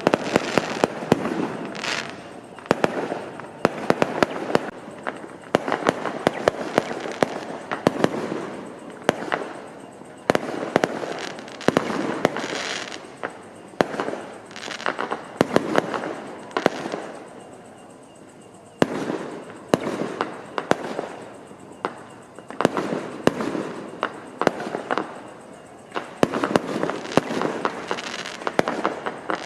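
Fireworks and firecrackers going off in a dense barrage: rapid sharp bangs and cracks in clusters over continuous crackling, with a brief lull about two-thirds of the way through.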